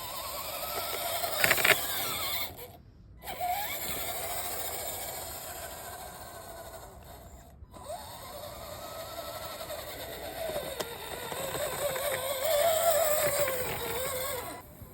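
Axial SCX10 RC crawler's electric motor and gear drivetrain whining, the pitch rising and falling with the throttle. The whine cuts out briefly about three seconds in and again near eight seconds, and is loudest near the end.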